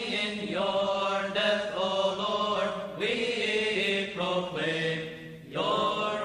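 Coptic liturgical chant sung by the congregation: a slow melodic line with long drawn-out notes over a steady low held note, with a short pause for breath about five seconds in.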